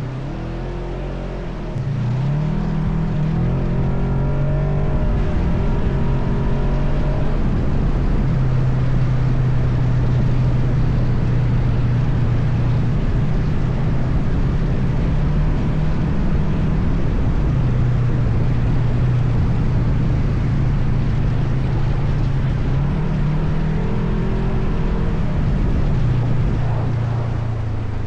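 ATV engine running while riding, throttle opening about two seconds in and then holding steady with a few brief rises and dips in pitch, easing off near the end, over wind and rough-road noise.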